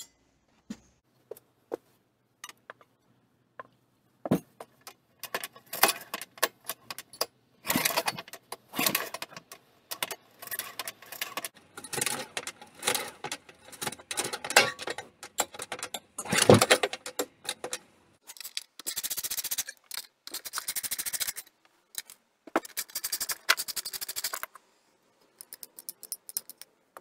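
Metallic clicking and rattling from hand work on a Honda G35 small engine's recoil starter as its housing is taken off: scattered clicks at first, then dense runs of clatter and rapid clicking.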